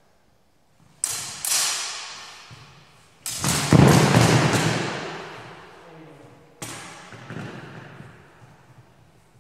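Steel feders clashing. Two sharp clangs come about a second in, a rapid flurry of blade strikes with a dull thud among them comes around three to four and a half seconds in, and another clang comes near seven seconds. Each rings out and echoes in the hall.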